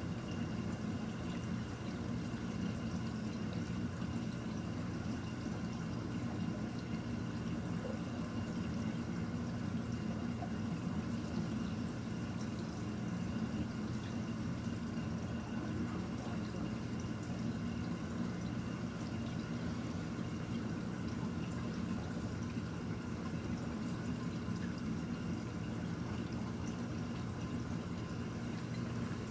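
Reef aquarium water circulating steadily, with a constant low hum and a few faint steady tones under it from the tank's pumps.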